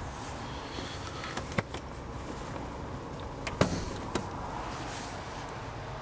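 Steady background noise with a few sharp clicks, the loudest about three and a half seconds in.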